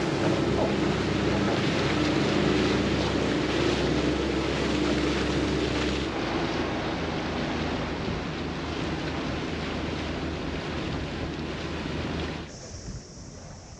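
Wind and water rushing past a boat under way, over the steady low hum of its engine as it motor-sails. Near the end the sound drops suddenly to a much quieter, steady high hiss.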